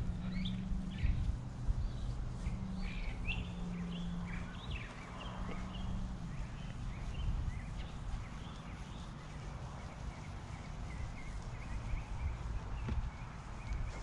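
Birds chirping in short, scattered calls over a low outdoor rumble, with a steady low hum in the first half.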